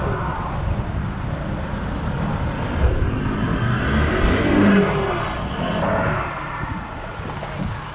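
Nissan Navara ute driving slowly, its engine and road noise steady, swelling louder in the middle and easing off near the end.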